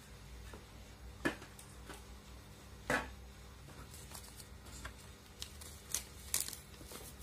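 Clear plastic helmet visor and tear-off film being handled: scattered light clicks and taps, with a sharper tap about a second in and another about three seconds in, and small crinkling ticks of the thin plastic toward the end.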